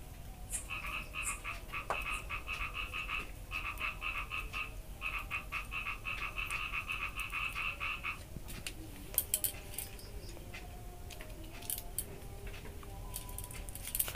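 A frog calling in rapid pulsed trills, three bouts of a few seconds each, that stop about eight seconds in. A few sharp clicks follow near the end.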